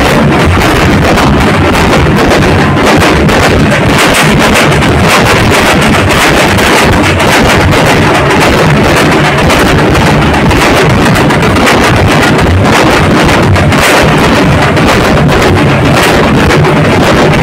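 A dhol-tasha troupe drumming: many large barrel dhols beaten with sticks in a dense, continuous pounding. It is loud enough to overload the phone's microphone, so it comes through as a distorted wall of sound.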